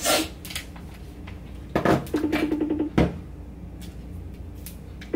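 Small hard objects being handled: a few sharp clicks and knocks, one at the start, then two more about two and three seconds in. Between them, a low pulsing buzz comes in for under a second.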